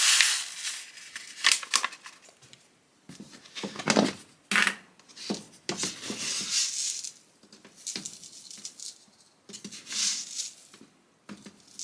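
Paper instant-oatmeal packet rustling and tearing as it is opened and emptied, with a few light clicks and knocks of kitchen utensils.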